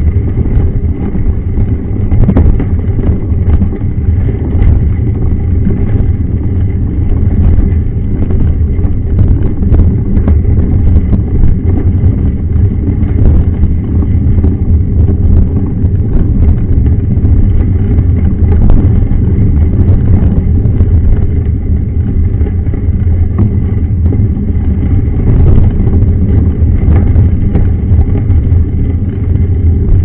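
Mountain bike rolling over a gravel dirt road, heard through a camera mounted on the front fork: a loud, steady rumble of tyre and frame vibration, peppered with small rattling knocks from the stones.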